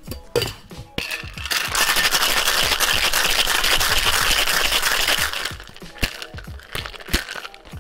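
Ice rattling hard inside a two-piece metal cocktail shaker shaken for about four seconds. It is framed by a couple of knocks as the tins come together at the start and a few clinks and taps near the end.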